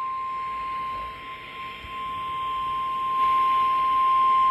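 NOAA Weather Radio's 1050 Hz warning alert tone: a single steady high beep held for several seconds over radio hiss.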